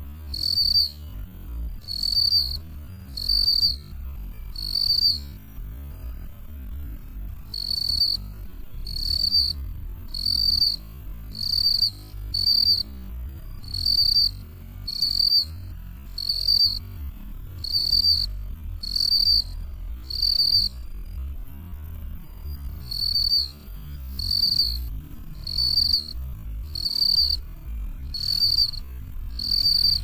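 Field cricket calling: a steady series of short, high-pitched chirps, about one a second, breaking off briefly twice.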